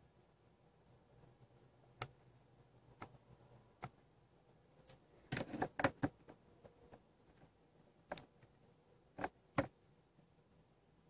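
Faint clicks of the Mercedes CLK500's steering-wheel menu buttons being pressed. Single clicks come about a second apart, then a quick run of clicks around five to six seconds in, then a few more near the end.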